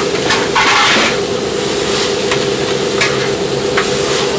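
Gopchang and vegetables sizzling on a hot flat iron griddle while a metal scraper-spatula scrapes and knocks against the griddle several times. The longest, loudest scrape comes just under a second in, and a steady hum runs underneath.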